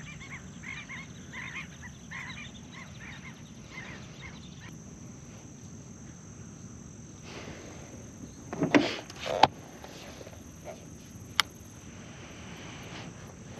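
Ducks calling in a run of short calls, about two a second, for the first few seconds. Then, about nine seconds in, a few loud knocks and rattles of gear being handled in a small boat blind, and one sharp click a little later.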